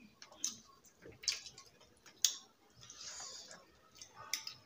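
Close-up eating sounds of people eating rice and fish curry with their fingers: wet chewing and lip smacks in irregular short clicks, the sharpest about two seconds in, with fingers mixing rice on the plates.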